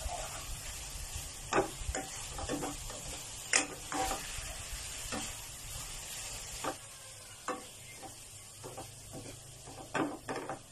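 Stir-frying in a wok: a spatula scrapes and knocks against the pan at irregular intervals over a steady sizzle of the fish and greens cooking. The sharpest knocks come about a third of the way in and near the end.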